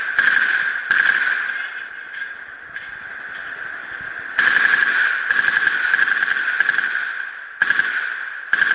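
Submachine gun firing full-auto in several bursts: short bursts at the start and about a second in, a longer string of fire about four and a half seconds in, and two short bursts near the end, all over a steady ringing tone.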